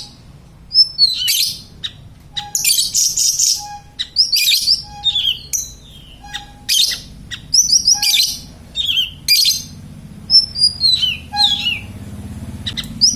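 A siri-siri songbird singing without pause: bursts of quick high chirps and falling whistled notes about once a second. Short low pips come in between the bursts.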